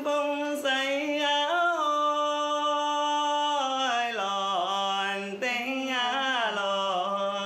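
Women singing a traditional Tanka fishermen's song, with long held notes that slide and bend in pitch.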